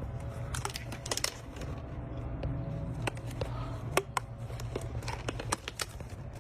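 Irregular sharp clicks and taps, about a dozen, the strongest about four seconds in, over a steady low hum.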